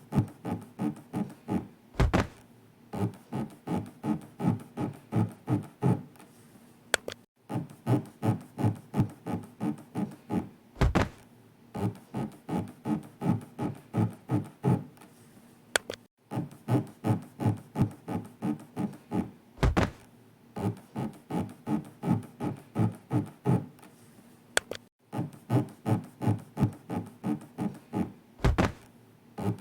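Looped sound effect for paced elevator breathing: a steady series of rubbing, scraping pulses, about two or three a second, standing for the elevator floor sliding along the inner walls. A low thud about every nine seconds marks the floor landing, four times in all, and each cycle ends in a short break.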